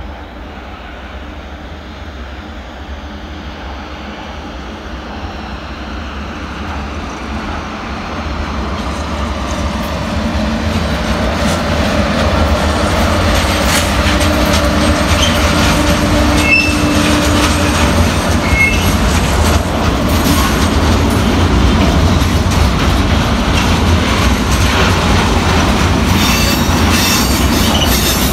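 ČD Cargo class 363 electric locomotive and a train of tank wagons passing close by. The rumble builds as it approaches and then holds steady as the wagons roll past, with wheels clicking over the rail joints. There are two brief high wheel squeals just past the middle.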